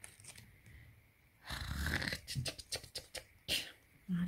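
Dry hoya leaves and stems rustling and crackling as fingers handle them and pull them off the plant, with a run of short crackles and a louder brushing rustle. A brief low hum comes near the end.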